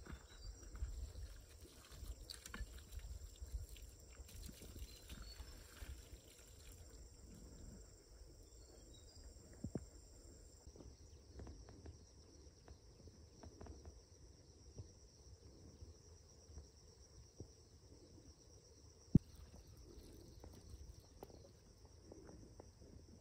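Faint outdoor ambience: a steady high insect drone over a low rumble, with light scattered rustles and clicks. One sharp click stands out well past the middle.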